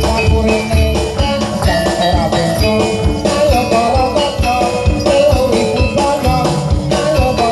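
Live Javanese jaranan music: drums and gamelan percussion keep up a fast, even rhythm under a bending melody, with bells jingling throughout.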